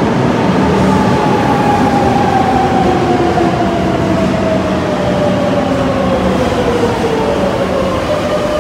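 Madrid Metro electric train pulling into the station and braking alongside the platform: rumbling wheels on the rails and a motor whine that falls steadily in pitch as the train slows.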